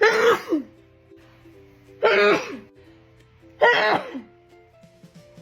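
A woman sneezing loudly three times in a row, each sneeze a short voiced burst about half a second long that drops in pitch at its end. Background music with held notes plays underneath.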